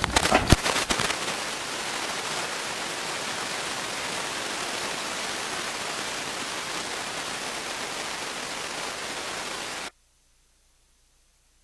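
A few sharp knocks or clatters in the first second, then a steady, even rushing hiss. The hiss stops abruptly about ten seconds in.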